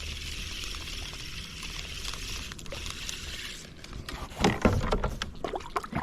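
Kayak being paddled: a steady swish of water for the first few seconds, then a run of sharp knocks and clatters on the hull, loudest about four and a half seconds in.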